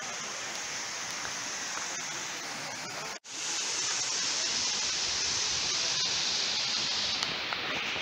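Steady rushing of water from a river spilling over small cascades between rock pools. It cuts out for an instant about three seconds in and comes back louder.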